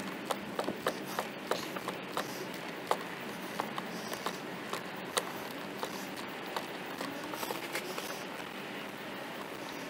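Irregular light clicks and taps, several a second, as hands handle plastic engine-bay parts, over a steady hiss.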